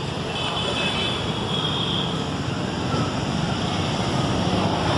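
Steady road traffic noise: the continuous rumble and hiss of vehicles on a busy street.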